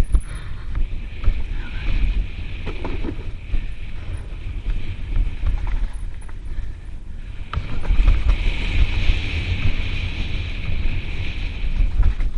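Mountain bike rolling fast down a dirt singletrack, with wind buffeting the camera's microphone over the rumble of the tyres on dirt and a few knocks from the bike. It gets louder for the last few seconds.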